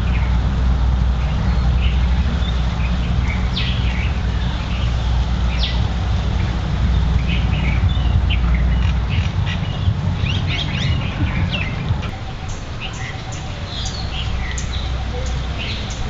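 Background birds giving many short, scattered chirps and calls over a steady low rumble. The rumble drops away about twelve seconds in.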